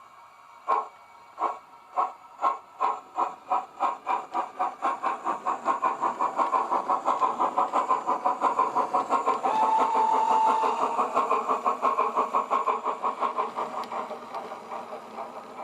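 Digital steam sound from a DCC sound decoder playing a two-cylinder Southern steam locomotive sound file through the model's small speaker: the loco pulls away with slow exhaust chuffs that quicken steadily to a rapid beat, with a brief steady tone about ten seconds in, then grow quieter near the end.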